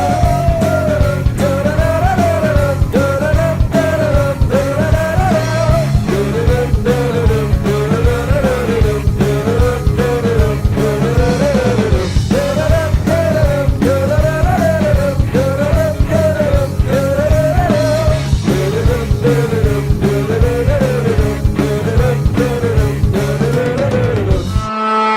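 Rock song played as a hockey team's goal song, with a steady heavy beat under a short melodic phrase that rises and falls and repeats about once a second. Near the end it cuts off and the next arena goal horn starts blasting, one steady many-toned blare.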